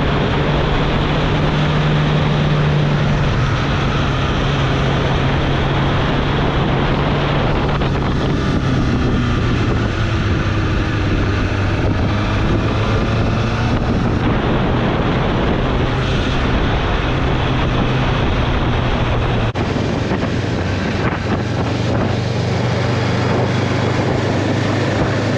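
Motorcycle engine running steadily under way, its note shifting slightly a few times, with heavy wind rush on the microphone.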